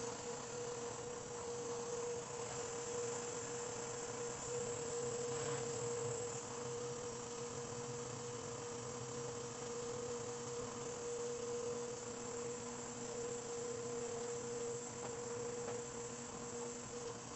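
A steady machine hum with one clear, even tone and a hiss above it, unchanging throughout.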